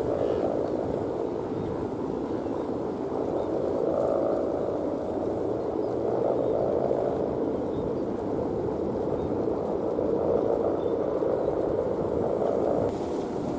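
Steady buzzing drone of a Balinese kite's guangan (bow hummer) vibrating in strong wind, with a faint held tone in it.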